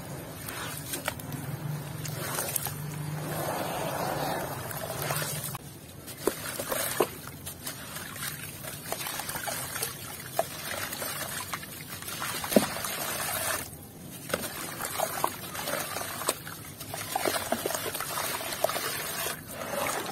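Grainy red dirt crumbling in water in a plastic tub as hands break it up and swirl it: wet grit trickling and water sloshing, with scattered small clicks of grains.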